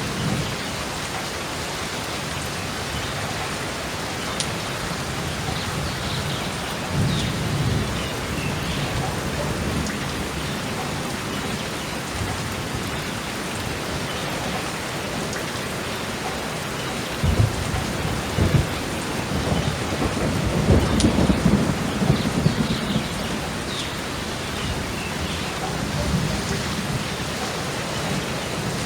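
Steady heavy rain falling, with thunder rumbling low under it: a light rumble early on, then sharp thunder cracks a little past the middle that run into a longer, louder rumble.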